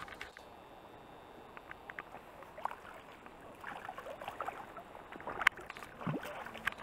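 Water splashing as a large hooked brown trout thrashes at the surface and is handled at the net, in scattered short splashes, with a sharp knock about five and a half seconds in.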